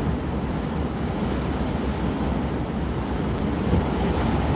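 Steady low road and engine noise of a car in motion, heard from inside the cabin.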